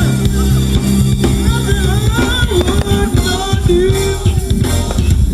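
Live rock band playing loud, continuous music on drum kit, bass and guitar.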